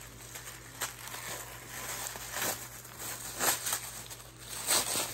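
Tissue paper crinkling and rustling in irregular bursts as a wrapped trinket tray is unwrapped by hand, loudest about three and a half seconds in and near the end.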